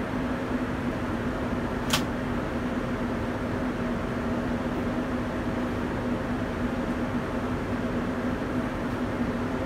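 Steady airliner cabin noise at cruise: engine and airflow noise at a constant level with a low steady hum, and a single sharp click about two seconds in.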